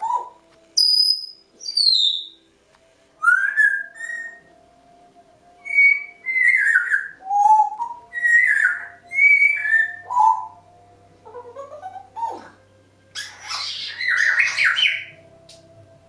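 Two Congo African grey parrots making their bedtime 'winding-down' noises: a run of short whistles and chirps, many sliding down in pitch, about one a second, with a harsher raspy call near the end.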